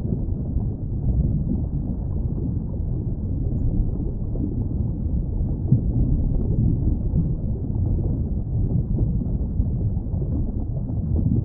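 Underwater ambience: a steady, low rumbling wash of noise with no distinct calls.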